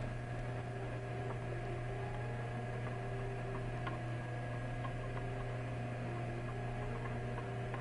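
Steady low hum with a few faint, light clicks as the oxygen analyzer's threaded fuel cell cap is turned counterclockwise by hand.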